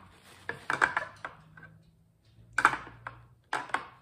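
A metal spoon clicking and tapping against a plastic lunch container as food is scooped and packed, in three short clusters of taps.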